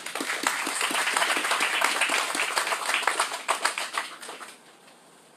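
Audience applauding: a burst of clapping that starts at once, stays dense for about three and a half seconds, then thins out and dies away.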